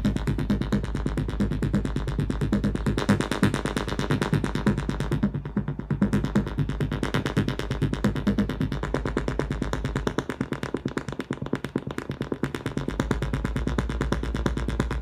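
Electronic music from a Make Noise 0-Coast semi-modular synthesizer and Elektron gear: a fast, steadily repeating sequenced pattern over a deep bass layer. The bass drops out for about three seconds after the middle, then comes back, while the knobs are being turned.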